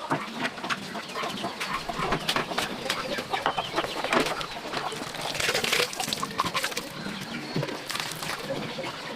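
Chickens clucking, with many short clicks and rustles.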